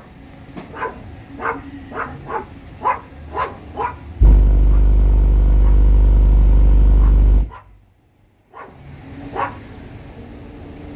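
Two Soundstream X3.12 12-inch subwoofers, driven by a Taramps MD 12000.1 amplifier at 0.5 ohm, play a steady 49 Hz SPL test burp for about three seconds and then cut off abruptly. Before the burp comes a run of short, repeated barks from a dog.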